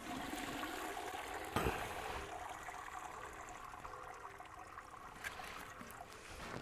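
Boil liquid pouring out through the holes of a lifted perforated stainless steel strainer basket into the stock pot below, a heavy stream that thins toward a trickle. A brief knock about one and a half seconds in.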